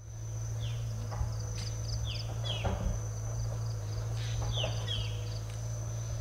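Woodland ambience: insects buzzing with a steady high drone and quick pulsed chirps, and a few short falling bird calls, over a steady low hum.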